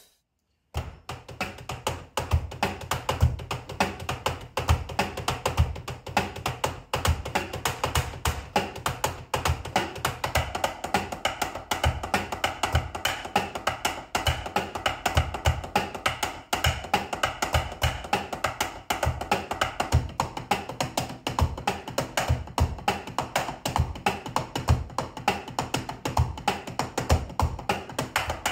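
Unamplified sound of an electronic drum kit being played: drumsticks tapping on mesh drum pads and rubber cymbal pads in a steady beat, with the dull thuds of the kick trigger's beater. It starts after a brief silence.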